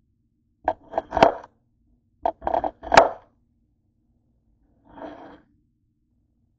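Thick cucumber slices being set down, stacked and slid on a hard work surface: two clusters of quick knocks and scrapes, about a second in and around three seconds in, then a softer scrape near five seconds.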